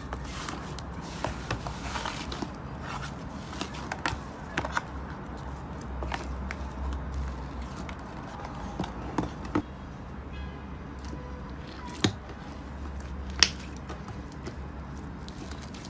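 Slime being pressed and stretched by hand, giving scattered small clicks and pops, with two louder pops near the end, over a steady low hum.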